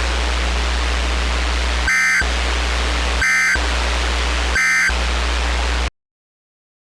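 Three short bursts of weather-radio SAME data tones, the EAS end-of-message signal that closes a warning, over steady radio static with a low hum. The static cuts off suddenly near the end.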